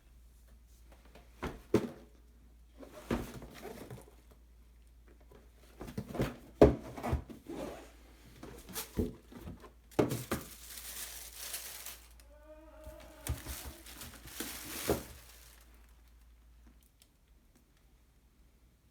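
Unboxing handling: knocks and thumps of a cardboard shoebox being handled and opened, with stretches of crinkling paper wrapping. It goes quiet for the last few seconds.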